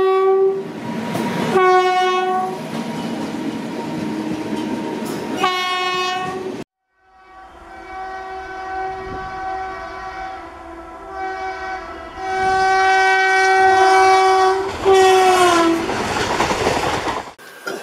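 Indian Railways electric locomotive air horns sound in repeated blasts over the noise of running trains and rattling wheels. Partway through, the sound cuts out briefly. Near the end one long horn falls in pitch as a train rushes past.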